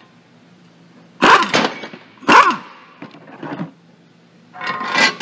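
A dog barks loudly twice, about a second apart, then once more faintly.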